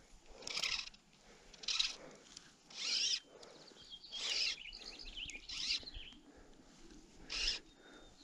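Fly line being stripped in by hand through the rod guides while playing a hooked trout: about six short zipping hisses, roughly a second apart.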